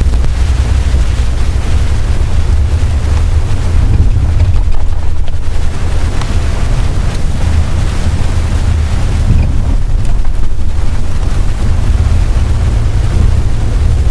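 Steady low rumble of a moving vehicle heard from inside its cabin, overlaid by heavy wind buffeting on the microphone.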